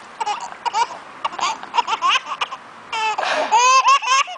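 Baby laughing in short repeated bursts, breaking into a louder, longer laugh about three seconds in.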